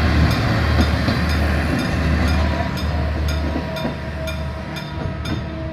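Passenger coaches of a long train rolling over the rails, the wheel rumble slowly fading as the last coach passes and draws away. A sharp high ticking repeats evenly, about twice a second.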